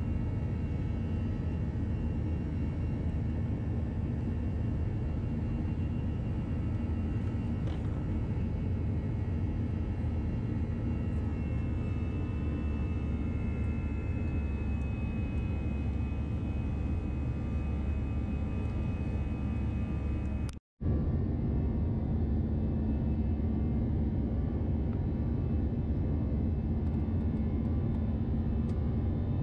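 Airbus A321-211 cabin noise from a window seat over the wing during the climb after takeoff: the CFM56 turbofans at climb power give a steady low rumble with thin whining tones above it. The sound cuts out for a split second about two-thirds through.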